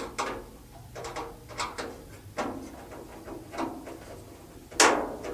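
Phillips screwdriver tightening screws down through the sheet-metal flange of a range hood blower, with short metal scrapes and clicks about once a second and the loudest one near the end.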